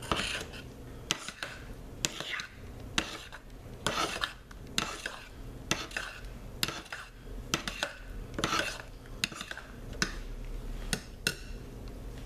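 Metal spoon stirring thick hot-process soap with oats in a crock pot, scraping and clinking against the pot's sides in irregular strokes about one or two a second. The stirring stops shortly before the end.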